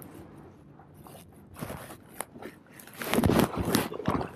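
Handling noise on a body-worn camera: faint rustling with a couple of light clicks, then louder irregular scuffing and knocks from footsteps and clothing rubbing the camera about three seconds in.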